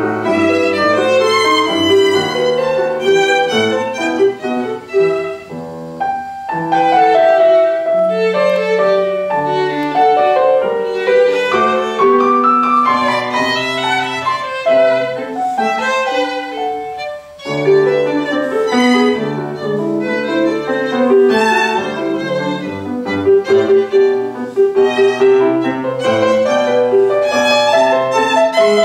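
Violin and grand piano playing a classical violin sonata together, the bowed violin line over piano accompaniment. The music thins out for a moment just past halfway, then carries on.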